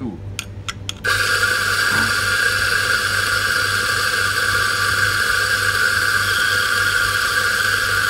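A few light clicks, then about a second in a Mazzer espresso grinder's motor starts suddenly and runs steadily, grinding a timed double-shot dose into the portafilter.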